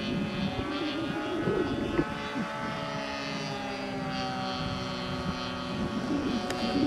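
Radio-controlled model airplane's engine and propeller droning overhead, its pitch drifting up and down as the plane flies around.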